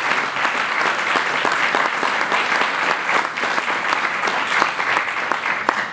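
Audience applauding: dense, steady clapping from many hands that stops near the end.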